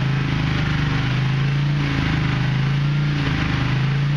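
Freshly rebuilt Ford 390 V8 running at a steady speed during its first-start break-in.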